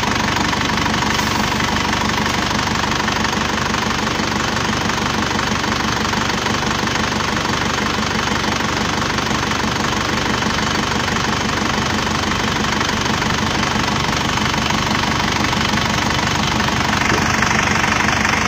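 Car engine idling steadily, close up.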